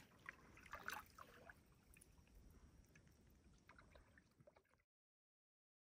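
Near silence with faint trickling and dripping of water off a kayak paddle. Cuts to dead silence near the end.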